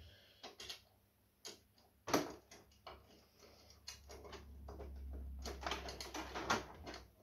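Screw and thin washer being fitted with a screwdriver into the back of a TV on a swing-arm wall mount: scattered small clicks and taps, a sharper click about two seconds in, then a run of quick ticks and scraping from about four seconds on.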